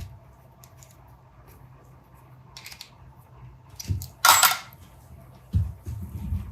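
Small metal parts and tools handled on a workbench: light metallic clicks and a few dull knocks, with a short sharp hiss a little past the middle.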